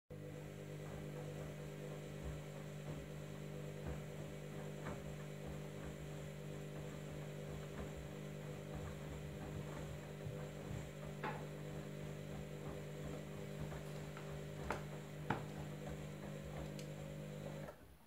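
Candy EcoMix front-loading washing machine's drum motor humming steadily as the drum tumbles sudsy wash, with scattered splashes and soft knocks of the wet laundry falling inside. The hum cuts off suddenly just before the end.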